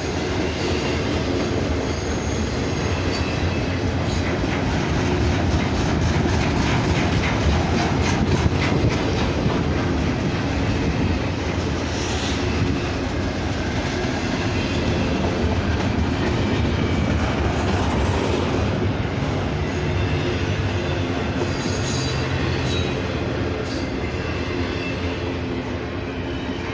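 Norfolk Southern freight train rolling steadily past, wheels clicking over rail joints, with a couple of brief high wheel squeals.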